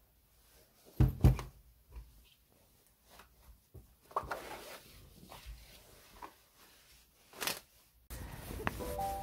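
Fabric bags being handled on a desk: two sharp knocks about a second in, then soft rustling and light knocks with a thump near the end. Background music with held notes starts just before the end.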